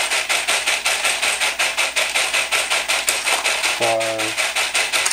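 3D-printed screw counting machine running: its motor-driven rotating bowl gives a fast, even clicking of about six clicks a second while screws rattle in it and drop out one by one to be counted.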